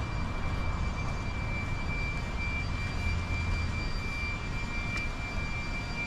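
Steady low mechanical rumble with a constant high-pitched whine over it, and a light click about five seconds in.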